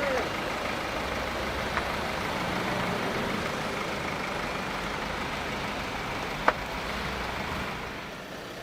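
A motor vehicle's engine running steadily, with a sharp click about six and a half seconds in; the engine noise eases off near the end.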